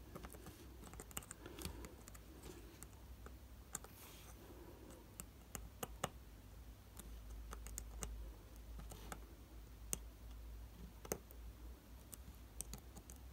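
Faint, irregular small clicks and light scratches from a small screwdriver working the tiny screws that hold the circuit board onto a vintage Casio digital watch module held in the fingers.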